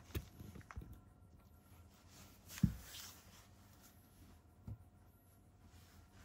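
A few soft, low thumps and a brief rustle, with the loudest thump about two and a half seconds in.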